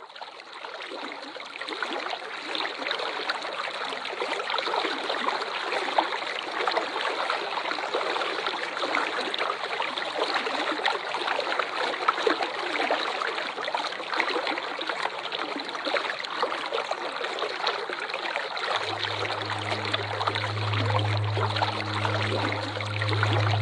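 Waterfall running water, a steady even rush that fades in over the first couple of seconds. A low steady hum joins it near the end.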